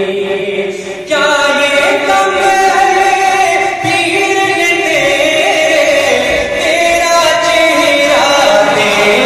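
A man's voice chanting a devotional poem unaccompanied, holding long melodic notes that slide from pitch to pitch, with a short breath about a second in before a new phrase.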